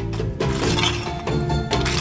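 Background music, over a few clattering scrapes of glowing coals being pushed aside with a metal-tipped poker on the floor of an old masonry bread oven.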